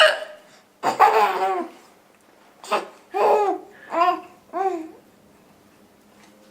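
A woman hiccups twice, once at the start and once just before the middle, and each hiccup sets off a baby's high-pitched laughter: one long laugh after the first and three quick bursts after the second.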